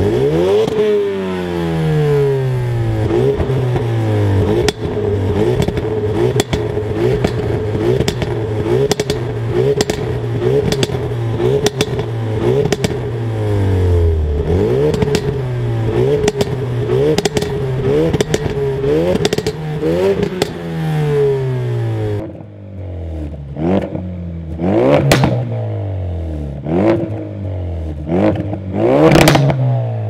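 Ford Focus RS Mk3's 2.3 EcoBoost turbocharged four-cylinder revved again and again at standstill through a Scorpion cat-back exhaust, each rev rising and falling quickly, with crackles in between. About two-thirds of the way through it switches to a Focus RS on a Cobra Sport Venom exhaust: sharper, more widely spaced revs over a quieter background.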